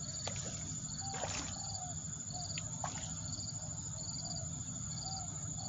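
Outdoor insect chorus: a continuous high buzz with short pulsed chirps repeating a little more than once a second, and short call notes in between.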